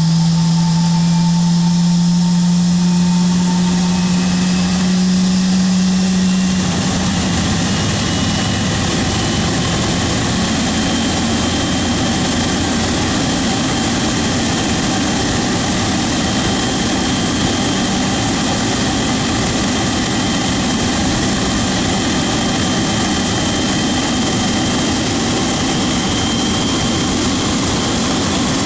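Boeing 777's GE90 turbofan engine during its start. A strong steady low hum gives way after about six seconds to a loud rushing noise, with a faint high whine that slowly rises in pitch as the engine spools up.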